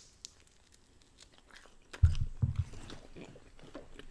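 A person biting and chewing food, with small mouth clicks. It is quiet for about two seconds, then comes a loud bite, followed by steady chewing.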